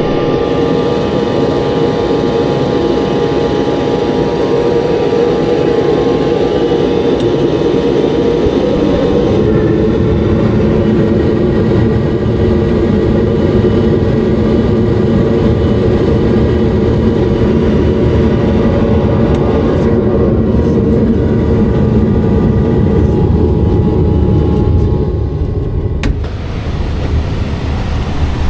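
Steady, loud mechanical drone of a running engine or motor, with a low hum and a few steady higher tones. It changes character about ten seconds in and dips briefly near the end.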